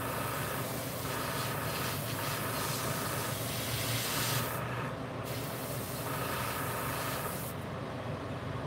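Airbrush spraying white paint: an airy hiss in two long bursts, with a short break about four and a half seconds in and the trigger let off near the end, over a steady low hum.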